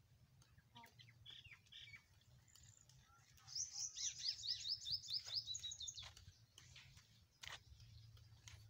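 A wild bird singing: a few scattered chirps, then a quick trill of short, high notes, each sliding downward, about five a second for roughly two and a half seconds midway.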